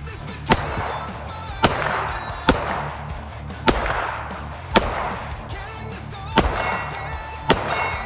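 Smith & Wesson M&P 9mm pistol fired seven times, about one shot a second with a slightly longer gap before the sixth, each report sharp with a short echo trailing off. Background music runs underneath.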